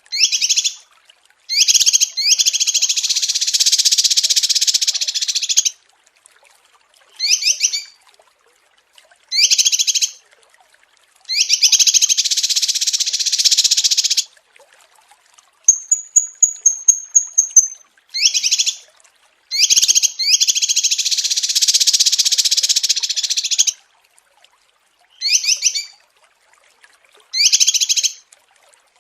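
Small songbirds singing: short chattering phrases alternate with long, dense trills lasting several seconds, and a thin high whistled series runs for about two seconds near the middle.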